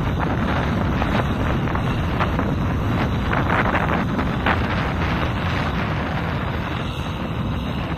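Wind buffeting the microphone, gusting harder about halfway through, over the steady running of a Kubota M6040SU tractor's diesel engine as the tractor pushes through deep mud.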